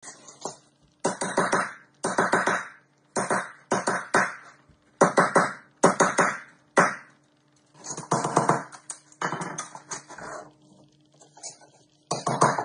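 Claw hammer driving the nails of carpet tack strips into a concrete floor. It comes as about a dozen bursts of quick hammer strikes, each under a second long, with short pauses between them.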